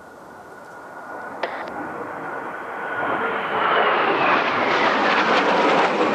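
Kawasaki T-4 jet trainers approaching on a low pass: turbofan whine and jet roar growing steadily louder, the high whine gliding slowly down in pitch as the roar fills in. A single short click about a second and a half in.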